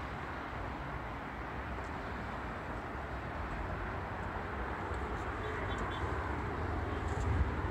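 Steady outdoor background noise, a low rumble with a hiss over it, and a couple of low thumps near the end.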